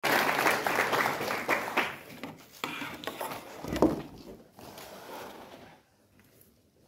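Hall crowd noise and chatter for about the first two seconds. Then the recording phone is handled and set down on the table, with a loud thump just before four seconds and lighter knocks and rustles after it.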